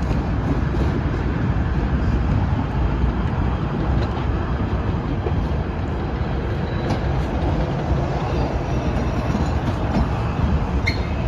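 PATH PA5 subway train rolling slowly through the switches, a steady low rumble of wheels on the rails, with a brief faint wheel squeal near the end.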